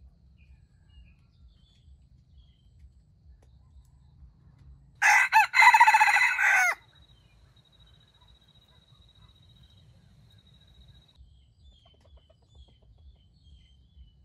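A red junglefowl rooster crows once, a short clipped crow of under two seconds about five seconds in.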